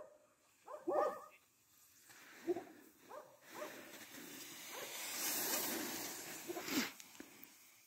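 A dog barking several times in short calls, the loudest about a second in, over a hiss that swells and fades in the middle.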